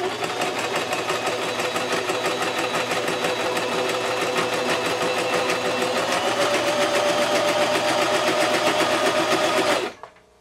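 Singer Simple entry-level sewing machine with a light-duty motor, running steadily and stitching through two layers of fleece with a fast, even clatter of needle strokes. It picks up a little speed about six seconds in and stops just before the end. It copes well enough with the thickness.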